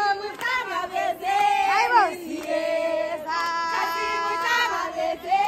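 Several high women's voices singing together in celebration, with long held notes and swooping rises and falls in pitch.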